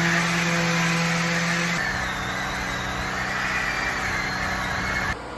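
Handheld electric power sander running steadily against log walls: a constant motor tone whose pitch and texture shift about two seconds in, then cut off abruptly near the end.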